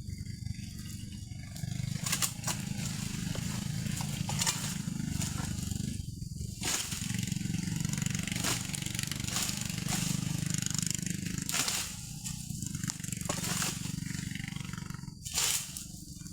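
Egrek pole sickle cutting oil palm fronds: sharp crackling, tearing strokes every second or so, irregularly spaced, over a steady low rumble.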